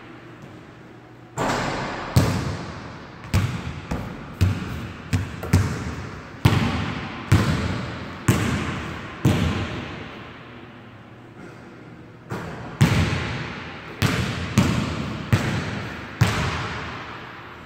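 Basketball being dribbled and bouncing on a hardwood gym floor: a string of irregular sharp bounces, each ringing out in the big hall's echo, with a pause of about two seconds past the middle.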